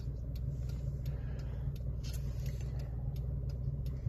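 Car running, heard from inside the cabin: a steady low rumble.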